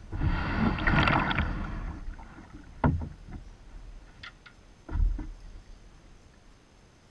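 Gear being handled in a kayak: about two seconds of rattling and scraping, then two sharp knocks against the boat, about two seconds apart.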